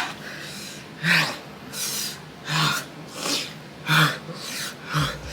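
A person breathing hard in short sharp gasps and puffs, about one every three-quarters of a second, from the burn of an extremely spicy gummy bear.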